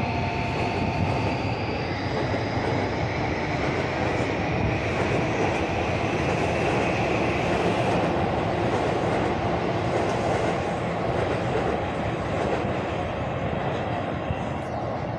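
JR Yamanote line electric commuter train running past on the adjacent track: a steady rumble of wheels on rail, with a high whine that rises slowly in pitch over the first several seconds.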